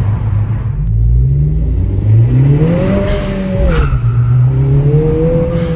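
2020 Honda Civic Si's turbocharged 1.5-litre four-cylinder, with aftermarket catback exhaust and cold-air intake, heard from inside the cabin, revving up under acceleration twice. The revs climb and then drop sharply near the middle with a short burst of noise, and climb again near the end.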